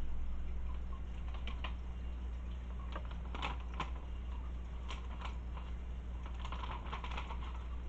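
Air bubbles from a volcano aquarium ornament rising and bursting at the water surface in irregular small clicks and ticks, over a steady low hum.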